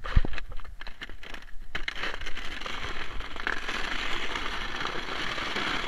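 Sliding down an iced-over driveway: a few scattered knocks and crackles over the first two seconds, then a steady scraping hiss of the slide over the ice.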